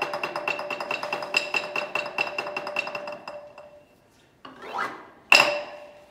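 Xylophone played with a fast tremolo roll on a held note that fades away over about three seconds. After a short pause comes a brief rising sweep, then one sharp final note that rings on, closing the piece.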